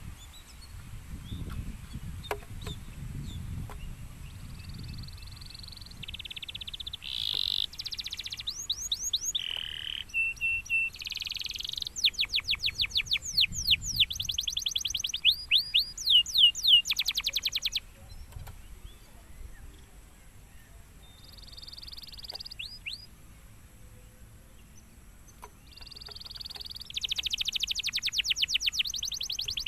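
Domestic canary singing in bursts of song: fast trills and runs of rapid repeated high notes, with pauses between phrases. The song starts about five seconds in, after a faint low rumble.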